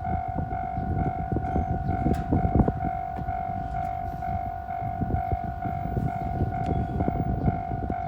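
Japanese level-crossing warning bell ringing in a steady fast rhythm over the rumble and irregular clatter of a 415 series electric train's wheels running past.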